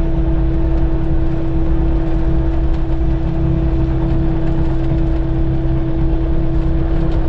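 Kubota KX080 excavator's diesel engine running steadily, heard from inside the closed cab as a constant low rumble with a steady hum.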